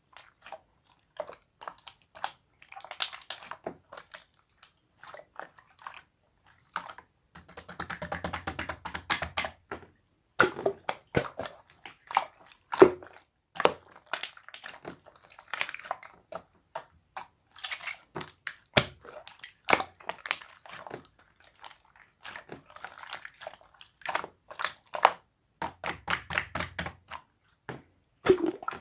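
Slime being kneaded and pressed by hand: a steady run of irregular sticky clicks, small pops and squishes, with a couple of longer squelching stretches.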